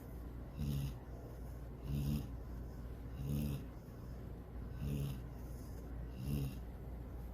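A sleeping dog snoring: five short snores, about one every second and a half.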